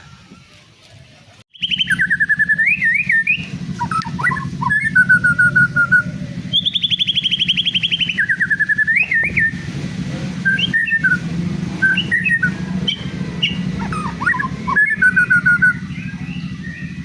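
White-rumped shama (murai batu) singing a varied run of clear whistled phrases and fast trills. It starts abruptly about a second and a half in, over a steady low hum.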